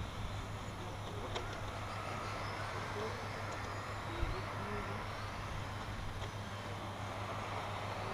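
Radio-controlled model racing trucks running on the track: a faint, gliding whine of their electric motors over a steady low hum and background noise.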